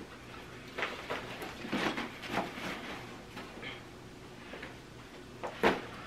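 Gear being handled and packed into a backpack: scattered rustling and light knocks, then one sharper knock near the end.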